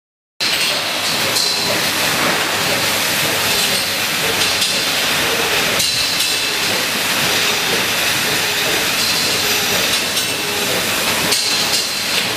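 A rotary milking shed running: a steady loud hiss and rumble of the turning platform and milking machinery, starting about half a second in, with a few short knocks.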